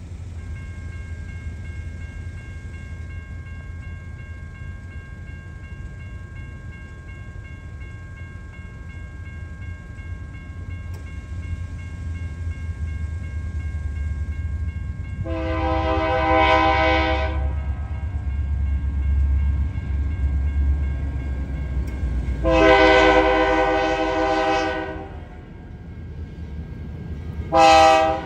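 Freight train's diesel locomotives approaching with a steady low rumble, the lead BNSF GE Dash 9-44CW sounding its multi-chime air horn: two long blasts a few seconds apart, then a short one near the end, the start of a grade-crossing signal.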